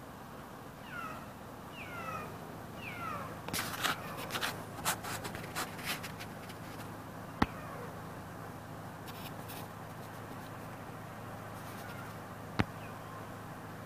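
Kitten meowing: about four short, high calls, each falling in pitch, in the first three seconds. Then rustling handling noise for a couple of seconds, and two sharp clicks several seconds apart.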